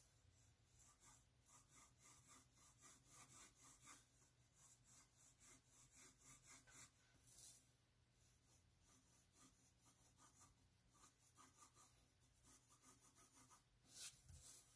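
Wooden pencil scratching on paper in quick repeated shading strokes, about three a second, thinning out for a couple of seconds around the middle.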